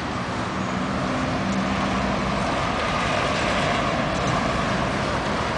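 Street traffic noise: a motor vehicle passing with a steady engine hum over a broad road rumble that swells over the first couple of seconds.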